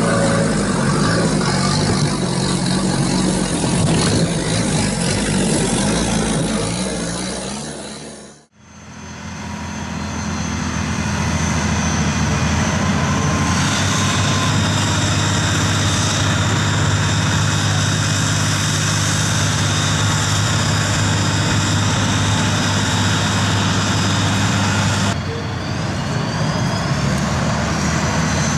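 Vehicle engine running, in two stretches. The first fades out about eight seconds in, then a second engine with a steady low hum fades in and keeps running, its sound changing shortly before the end.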